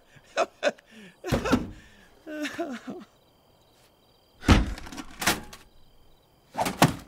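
Several knocks and clanks at uneven intervals from a vending machine's metal push-flap and cabinet as a cartoon raccoon works at the dispensing slot. Short effortful grunts come between them.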